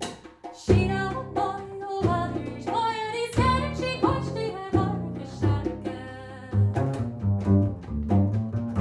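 Live traditional Irish song: a woman's voice singing over an upright double bass and djembe. The voice stops about halfway through, leaving the bass line and hand-drum taps.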